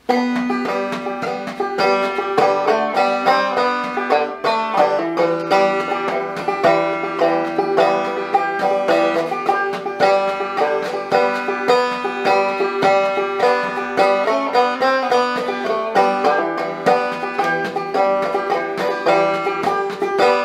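Banjo played clawhammer style: a quick, even stream of plucked notes with a steady ringing drone underneath.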